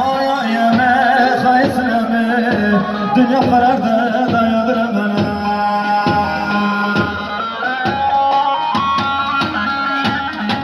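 Loud live Turkish folk dance music for a halay line dance. A wavering, ornamented melody runs over a held low tone and a steady drum beat.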